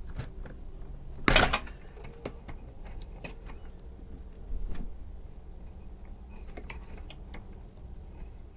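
One sharp knock about a second in and a duller thump a few seconds later, among scattered light clicks, over a low steady hum.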